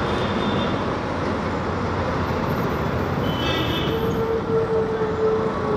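Motorcycle riding through city traffic, with steady engine and road noise. A single held tone sounds for just under two seconds near the end.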